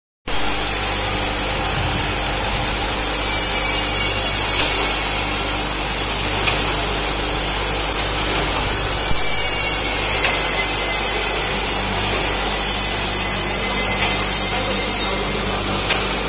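Coffee capsule filling machine running with its bowl feeder sending empty plastic capsules along the track: a steady mechanical hiss and hum with a few light clicks.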